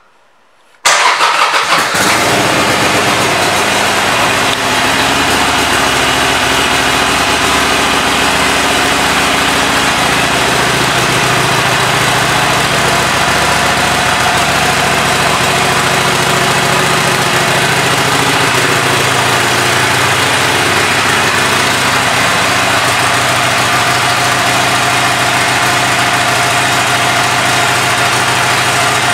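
2017 Harley-Davidson Iron 883's air-cooled 883 cc V-twin starting about a second in, then idling steadily.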